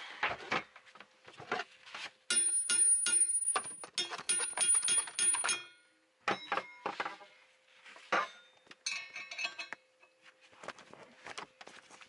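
Metallic clinks and ticks of tools working a steel gear puller on a yacht's propeller-shaft coupling, with a dense ringing clatter from about two to five and a half seconds in, then scattered ticks.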